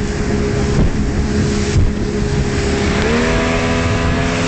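Speedboat engine running at speed over choppy water, with a steady rush of water and wind. About three seconds in the engine's pitch steps up as the throttle is opened; two brief thumps come about one and two seconds in.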